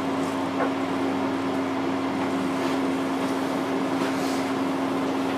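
Steady mechanical hum with a constant low tone and an even hiss, like a room's air-conditioning or ventilation running.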